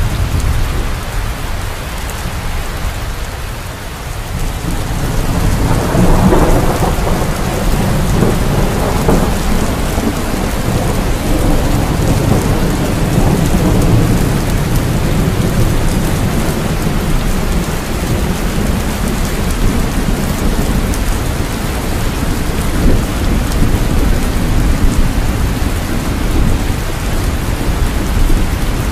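Steady rain in a thunderstorm with low rolling thunder; a rumble swells about five seconds in and then eases back into the rain.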